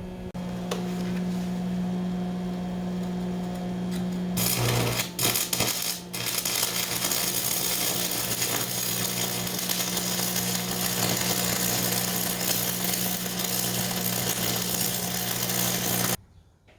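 Welding steel cross members into a stock trailer: the welding arc crackles steadily over the welder's low hum. There is a short break with a few knocks about four to five seconds in, and the sound cuts off abruptly near the end.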